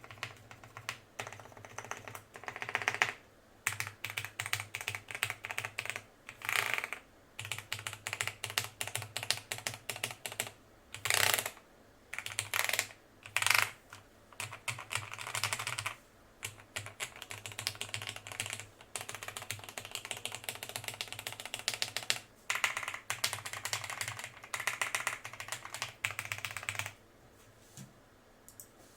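Typing on a Cherry G80-3000 keyboard rebuilt with lubed and filmed Cherry MX Black linear switches, mounted without a plate over dampening foam, with PBT double-shot Cherry-profile keycaps. The keys go in fast runs of clicks broken by short pauses, and the typing stops near the end.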